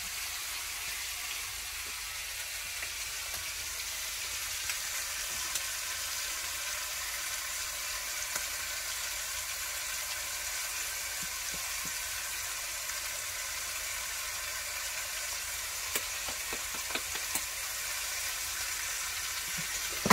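Oxtail pieces sizzling as they brown in a stainless steel pot: a steady frying hiss with a few faint clicks, more of them near the end.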